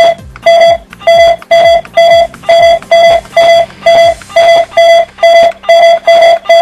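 Short identical electronic beeps repeating about three times a second, from the Verisurf inspection software while points are collected with a portable measuring arm.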